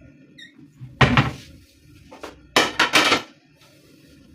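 Ceramic dinner plates clattering as they are handled and set down: one knock about a second in, then a quick run of several knocks.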